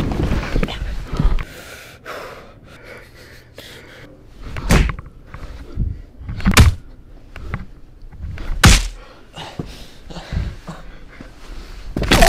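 Scuffle on the floor: several heavy thuds about two seconds apart, with quieter knocks in between.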